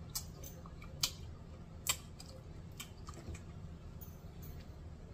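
A few faint, sharp clicks at irregular intervals, roughly one a second, over a low steady hum.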